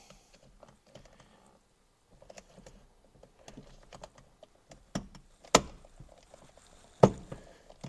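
Driver's airbag module being pressed into a BMW E46 steering wheel: faint rubbing of plastic against the wheel, then three sharp plastic clicks in the second half, the middle one the loudest, as the airbag's spring clips snap into place.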